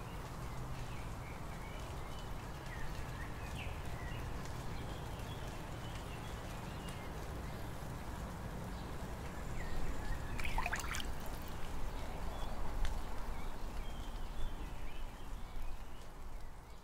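Faint outdoor ambience with birds chirping now and then, and a brief flurry of chirps a little past halfway, after which the background gets slightly louder.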